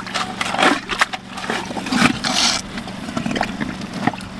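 An engine running steadily while rock and gravel scrape and knock, irregularly, as a water-logged hole is dug out in rocky ground.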